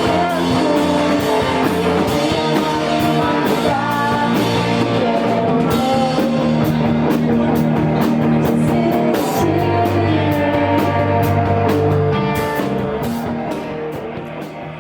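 Live emo rock band playing loud, with electric guitars, a drum kit and singing; the music dies away over the last few seconds as the song ends.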